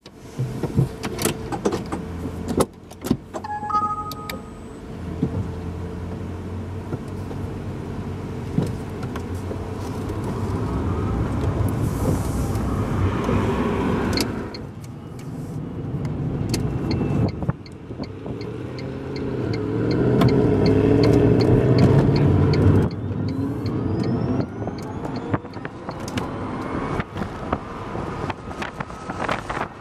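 Tesla Roadster driving with the roof off: open-top wind and road noise over the electric motor's whine, which rises in pitch as the car pulls away and speeds up. There is a short electronic beep about four seconds in.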